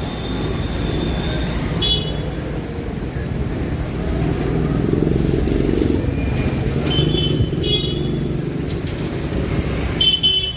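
Steady traffic rumble with a few short, high-pitched toots.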